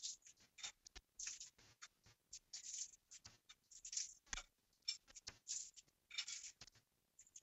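Oven-baked bacon strips being torn apart by hand, a pile at a time: faint, irregular crisp crackling and snapping.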